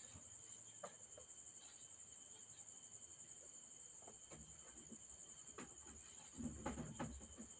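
Very faint room sound with a steady high-pitched whine and a few light ticks. Near the end comes a brief soft rustle of cotton fabric being handled and drawn out from the sewing machine.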